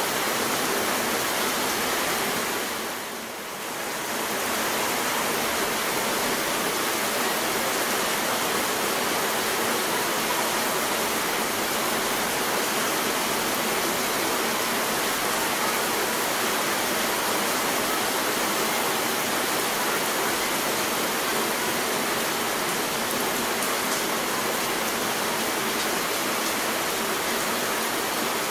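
Heavy rain pouring down steadily, a dense even hiss. It dips briefly about three seconds in, then carries on as before.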